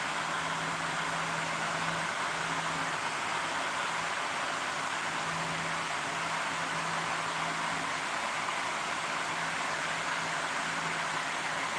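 A steady, fan-like hiss with a faint low hum that comes and goes.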